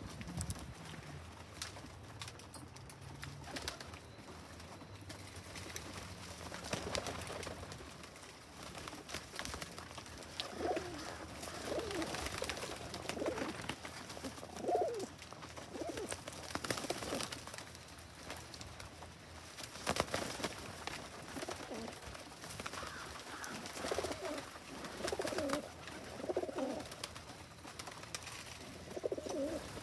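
Pigeons cooing in runs of several low coos, from about ten seconds in and again near the end, over scattered sharp taps and clicks.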